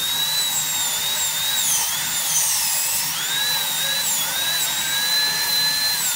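High-speed dental handpiece whining as its bur cuts the buccal cusp of a typodont premolar, occlusal reduction for a crown prep. The high whine wavers and dips in pitch as the bur bears on the tooth.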